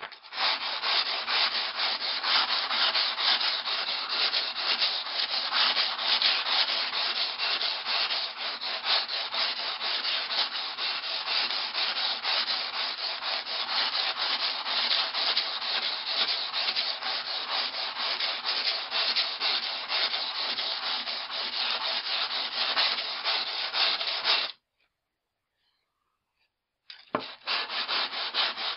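An axe bit being drawn over coarse 120-grit wet-and-dry sandpaper on a foam mat, a continuous gritty rubbing. This is the coarse stage of a convex grind, taking chips and gouges out of the edge. The rubbing stops about three-quarters of the way through for two seconds, then starts again with a short knock.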